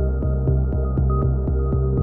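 Background electronic music with a steady beat of about four pulses a second over sustained bass notes.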